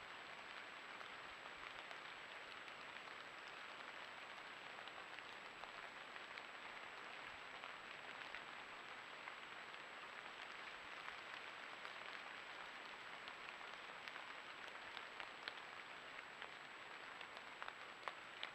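Steady rush of a rain-swollen woodland stream, with scattered small sharp ticks like drips.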